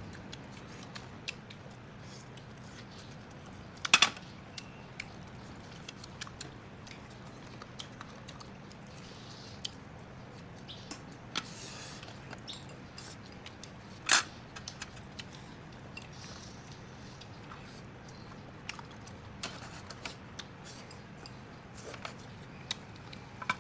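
Close-up eating sounds of a person eating chicken: scattered small clicks and smacks of chewing and handling the food, with two sharper, louder clicks, over a steady low hum.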